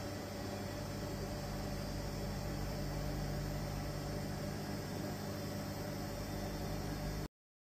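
Vacuum pump running steadily, pumping down the gauge manifold: an even machine hum with a few constant low tones and a faint high whine. It stops abruptly near the end.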